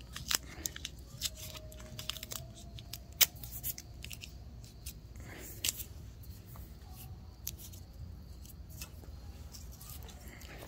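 Blue painter's tape being pulled off the roll and wrapped around the eyelet of a lead fishing weight: scattered crackles and clicks, with one sharp snap about three seconds in.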